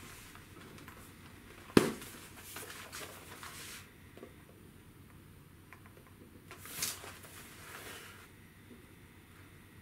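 Handling noise as a laptop is turned over in the hands. There is a sharp knock about two seconds in, then rustling of a packing sheet, with more rustling after the middle.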